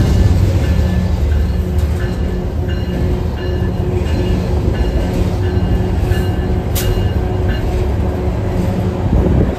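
An exo Bombardier ALP-45DP commuter locomotive arriving along the platform, its engine running with a steady low hum, while a container freight train rolls past on the next track. There is one sharp metallic click about seven seconds in.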